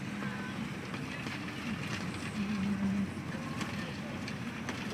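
Steady car running noise, engine hum and road noise, heard from inside the cabin.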